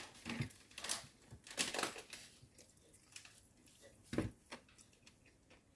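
Close-miked eating sounds from a chicken mukbang: irregular chewing, biting and wet mouth clicks. A louder thump comes about four seconds in.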